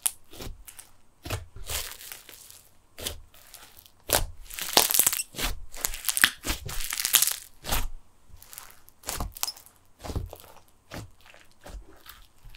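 Snow fizz slime, a glue slime packed with plastic snow, being kneaded and squeezed by hand, giving irregular bursts of fizzy crackling and popping that are densest and loudest in the middle.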